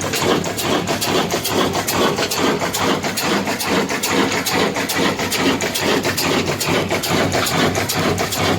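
Old heavy black diesel engine (Pakistani 'kala engine') running steadily, with an even, fast knocking beat.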